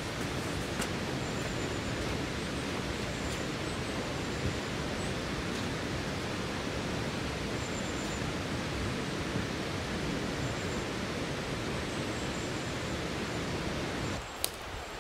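Steady rush of a river flowing through a rocky glen, with faint high-pitched chirps now and then. Near the end the rush thins and a couple of sharp clicks sound.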